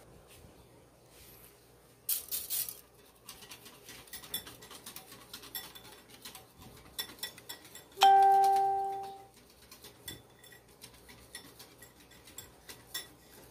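Utensil stirring food colouring into rice-flour batter in a ceramic bowl, with many light clicks and taps against the bowl. About eight seconds in, a single loud electronic chime, like a doorbell, rings and fades within about a second.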